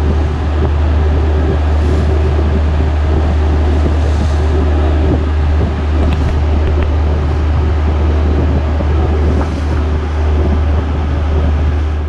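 Ferry under way: steady engine drone with water rushing in the wake, and wind buffeting the microphone.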